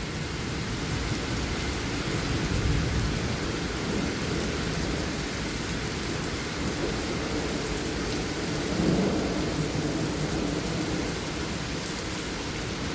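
Derecho storm: heavy rain and strong wind, a steady rushing with a deep rumble that swells briefly about nine seconds in.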